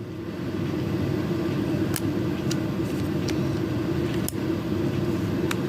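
Home-made VEX ratchet mechanism turning with a steady low mechanical hum, while its lexan pawl gives a few sharp, irregularly spaced clicks over the ratchet gear.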